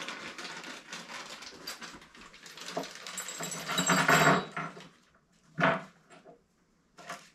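Small metal mounting parts being rummaged for and handled: a stretch of rustling and clinking that grows loudest about four seconds in, then two short knocks near the end.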